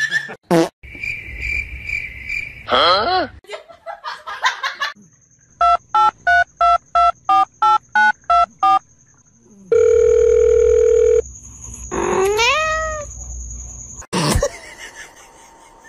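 Telephone keypad beeps, about ten of them at roughly three a second, then a steady dial tone for about a second and a half, followed by a drawn-out cry that rises then falls. Before the beeps come a few seconds of high-pitched animal cries.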